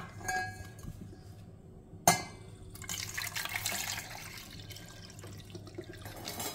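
An egg set down into a stainless steel pot with a sharp clink, and a second clink against the pot about two seconds in. From about three seconds in, water is poured from a saucepan and splashes over the eggs in the pot, filling it.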